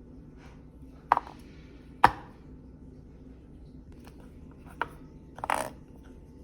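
Food being chopped or struck on a kitchen cutting board: three separate sharp strikes about a second apart, then a longer, noisier sound near the end.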